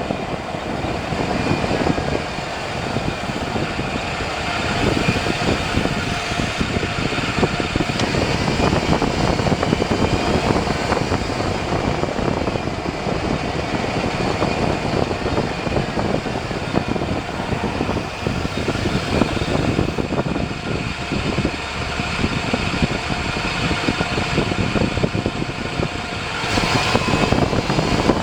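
2001 Chevy Silverado driving at highway speed: steady road and wind noise with a faint whine from the front end that drifts slowly in pitch. The owner traced the whine to a failing front drive shaft between the transfer case and the front differential.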